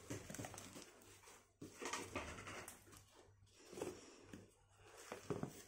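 Tissue paper rustling and a cardboard box being handled as a hand digs a wrapped plant out of its packing, in several short bouts with a few light knocks.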